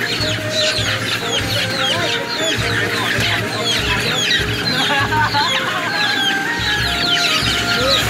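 A large flock of caged chickens calling all together: many short, high, falling squawks and clucks overlapping without a break, over a low hum.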